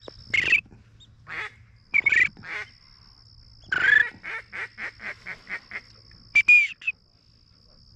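Duck quacks: a few single calls, then a quick run of about eight short quacks, then one more call, over a faint steady high-pitched tone.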